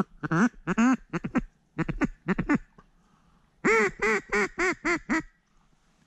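Hand-blown duck call sounding loud quacks in a few short bursts, then a run of about seven quacks near the end that come quicker toward the last.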